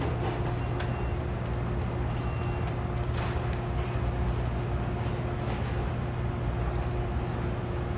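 Steady low drone of heavy diesel demolition machinery running, with a few faint clicks and knocks over it.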